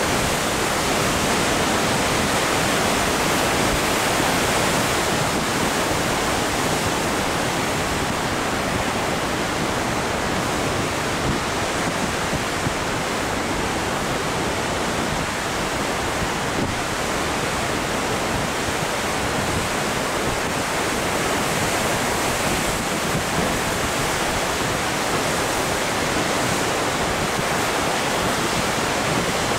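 Heavy ocean surf breaking and foaming white water washing around rocks close below, a steady unbroken rush of sound with no single wave standing out.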